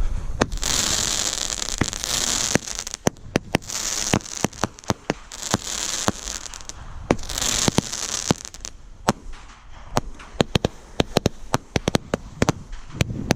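Consumer fireworks going off at close range: three spells of loud hissing in the first eight seconds, with a run of sharp cracks that continues through the rest.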